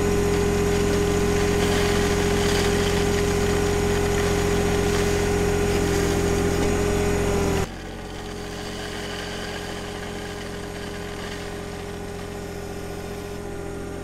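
John Deere 1025R compact tractor's three-cylinder diesel engine idling steadily. It drops suddenly in loudness about seven and a half seconds in without changing pitch.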